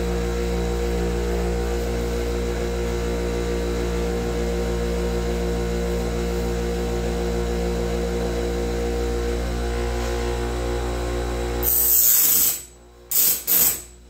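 Band sawmill blade sharpener's grinder motor running with a steady hum. About twelve seconds in, a loud brief rush of noise comes and the hum stops, followed by two short loud sounds near the end.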